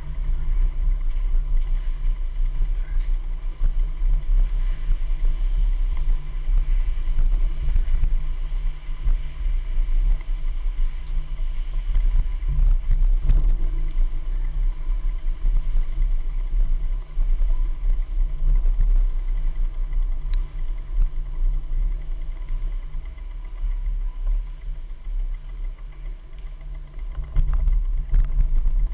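Uneven low rumble of a handlebar-mounted camera rolling over the floor, with its vibration coming through the mount. It grows louder near the end.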